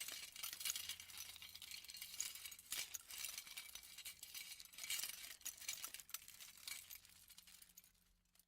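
Metal jewelry rustled heavily in the hands: a dense, continuous jingle of small clinks that thins out and fades away over the last second or so.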